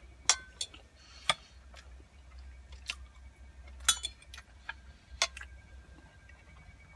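Cutlery clinking and tapping against a plate during eating: irregular sharp clicks, about a dozen over several seconds, over a low steady hum.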